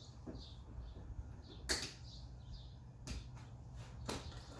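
Zip-tie tails being snipped off with cutters: a few sharp snaps, the loudest nearly two seconds in.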